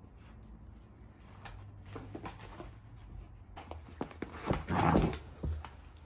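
Labrador puppy mouthing and tossing a plush toy with a cardboard tag attached: scattered rustles and light knocks, with a louder scratchy rustle lasting about half a second near the end.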